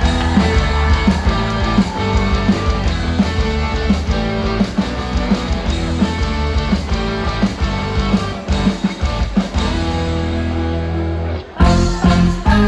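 Amplified music playing the instrumental intro of a song: drums and bass on a steady beat with guitar. The music cuts out abruptly for a moment about eleven and a half seconds in, then comes back in.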